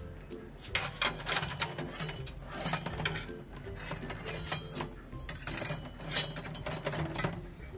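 Cooked salted duck eggs and a metal skimmer clinking and knocking against each other and the pot in irregular light clicks as the eggs are scooped out, over soft background music.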